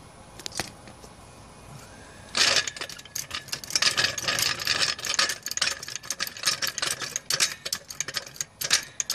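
Hydraulic floor jack being worked to raise its saddle under the front knuckle: a dense run of rapid metallic clicks and rattles starting about two seconds in.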